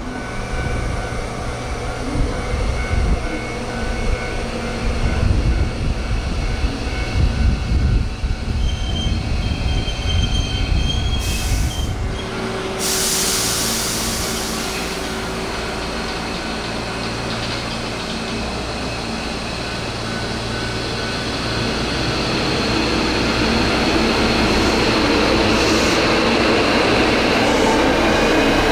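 Hankyu electric train at a station: a heavy, uneven rumble with steady tones, a short burst of air hiss about twelve seconds in, then the sound building again over the last several seconds with a motor whine sliding upward as the train pulls away.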